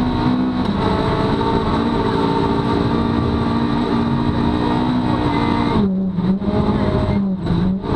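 Rally car engine heard from inside the cabin, pulling hard at high revs under full throttle. About six seconds in the throttle comes off and the revs drop and dip up and down in quick jerks as the car brakes and shifts down.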